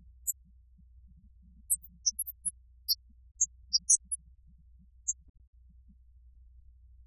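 Steady low hum with many brief, scattered high-pitched chirps at random pitches, like digital glitches; no music is heard.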